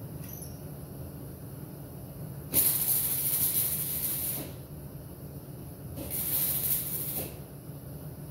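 MIG welder with .023 wire laying two short welds on the sheet-steel patch panel of an M151A1 jeep body, a hissing crackle lasting about two seconds, then after a short pause another of about a second and a half. A steady low hum runs underneath.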